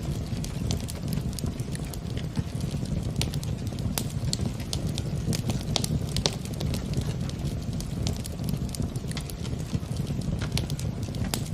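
Wood fire in a fireplace crackling, with frequent sharp, irregular pops over a steady low rumble of burning.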